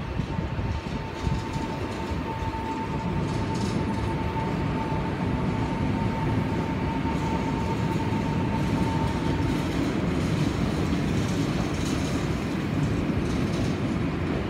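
Tokyo Metro 05 series electric train passing on an elevated track, its wheels rumbling and clattering over the rails. A steady whine from its chopper control runs over the rumble and stops about nine and a half seconds in.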